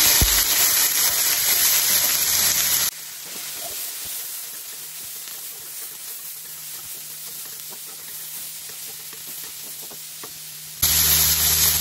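Snow peas and crushed garlic sizzling in hot oil in a wok while being tossed with a wooden spatula, with faint scrapes and taps of the spatula on the pan. The sizzle drops abruptly to a much quieter level about three seconds in and comes back loud about a second before the end.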